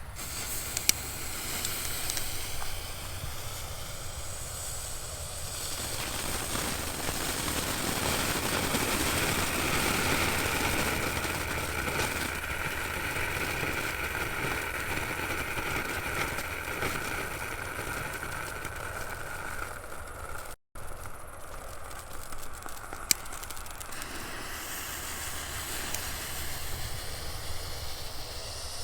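Small category 1 consumer fireworks from a J-Fireworks Grandprix assortment burning with a steady sputtering hiss and a few sharp pops, a faint whistle running over the hiss in the middle. The sound cuts off abruptly about two-thirds through and a hiss carries on after it.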